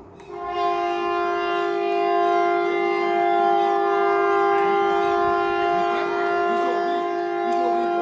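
Civil defence air raid siren sounding its test, coming on abruptly less than a second in and then holding a steady chord of two close tones with many overtones.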